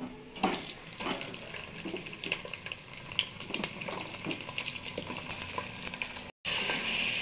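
Raw chicken pieces frying in hot oil with fried onions in a heavy-bottomed pot, sizzling with scattered crackles and pops as the pieces go in. The sound cuts out for an instant near the end, then the sizzle comes back louder.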